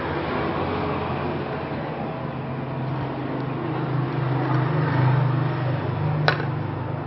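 A steady low mechanical hum over a noisy rumble, swelling a little about five seconds in, with a single sharp click about six seconds in.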